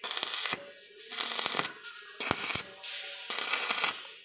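Electric arc welding on steel, crackling and hissing in four short bursts of about half a second each, with quiet gaps between, as the steering gearbox bracket is tack-welded.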